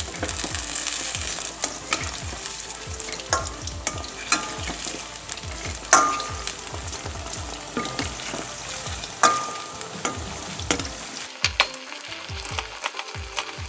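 Egg-and-spice-coated chicken pieces sizzling as they fry in oil in a pan on medium heat. A few sharp, ringing clinks stand out, the loudest about six and nine seconds in.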